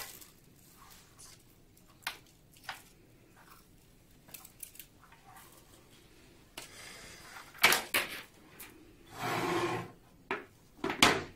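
Plastic fibre-optic splitter tray and box being handled: scattered light clicks and knocks, a rustling rub lasting about a second around nine seconds in, and sharp knocks near the end as the tray is put down on the table.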